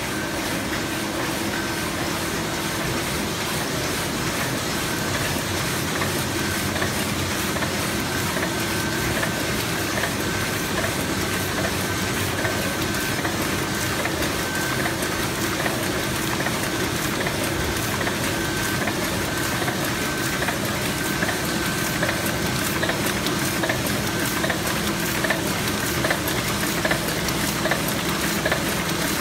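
Heidelberg GTO 52-4 four-unit sheetfed offset press running: a steady, dense mechanical clatter of fast ticks with a steady high tone.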